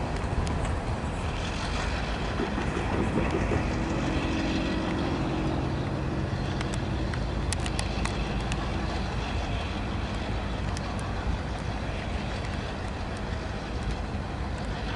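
A diesel locomotive and the freight cars behind it rumbling slowly past, with a held engine tone for a couple of seconds and a few sharp metallic clicks from the rolling cars around the middle.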